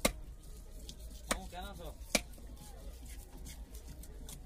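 Large knife chopping through a big fish onto a wooden log chopping block: one sharp chop at the start and two more a little over one and two seconds in. Faint voices in the background.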